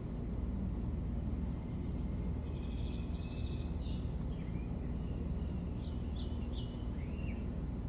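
Small songbird calling: a quick trill about two and a half seconds in, then a run of short chirps and slurred whistled notes, over a steady low background rumble.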